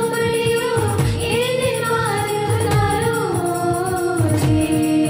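A group of girls singing an Indian prayer song together in unison, holding and bending long notes over a steady, evenly repeating drum beat.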